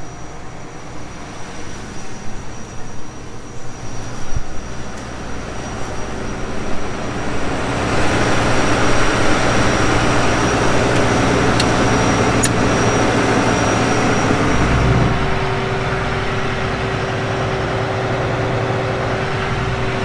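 Combine harvester's engine and threshing machinery running steadily. The noise grows louder about eight seconds in, and a steady hum changes pitch around fifteen seconds in.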